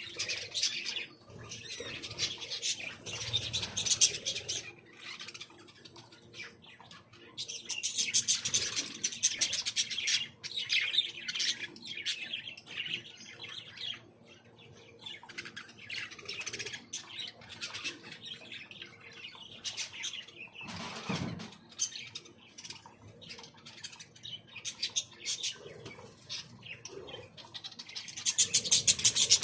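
Many small aviary birds chirping and chattering together in bursts, loudest about a second in, again around eight to eleven seconds in, and near the end, with scattered chirps between.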